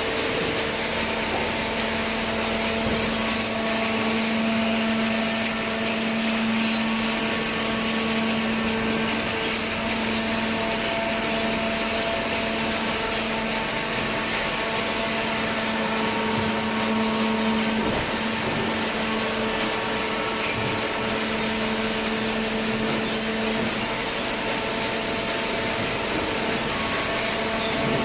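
Paper baler machine running: a steady mechanical hum over an even hiss, with one lower hum tone dropping away a few seconds before the end.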